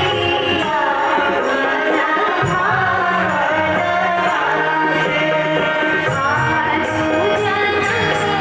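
Live Indian song: a woman sings the lead over her own harmonium, with tabla and men's voices singing along.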